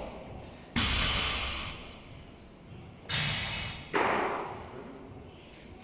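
Three loud, sudden impacts, about a second in and twice more close together past the three-second mark, each fading out over most of a second.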